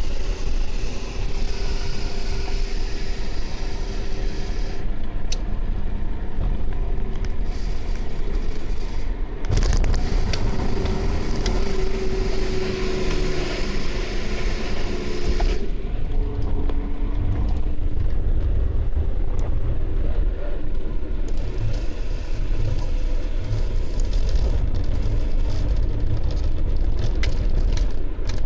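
BMW E30 under way, with engine and road rumble and a faint whining tone from the driveline that shifts in pitch; the rumble grows louder about a third of the way in. The whine remains after a new propshaft centre support bearing and flex disc, and goes away under engine braking in third gear.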